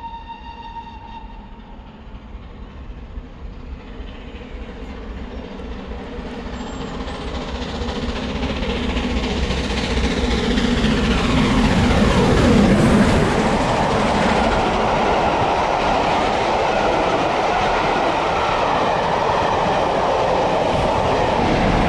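The long note of a steam whistle fades out in the first second, then GWR Castle-class steam locomotive Clun Castle runs through at speed: it grows steadily louder as it approaches, passes at its loudest about twelve seconds in with a falling sweep in pitch, and the wheel noise of its coaches follows, loud and steady.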